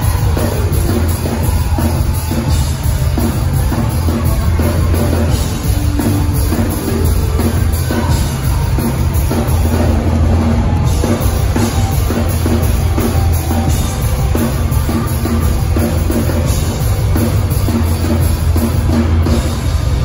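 A hardcore punk band playing live at full volume: a drum kit pounding under distorted electric guitars and bass, with heavy, steady low end.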